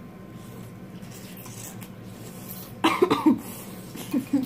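A girl coughing while eating ramen noodles: a quick run of coughs about three seconds in, then two short ones near the end.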